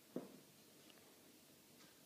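Near silence, broken about a fifth of a second in by one short, soft thump as the play-fighting kittens bump against the floor.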